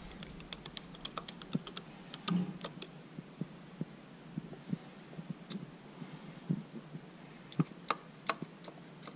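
Small, sharp metallic clicks and ticks of a flat-blade screwdriver turning a brass jet into the aluminium float bowl of a Weber 32/36 carburetor, in quick irregular runs in the first few seconds and again near the end.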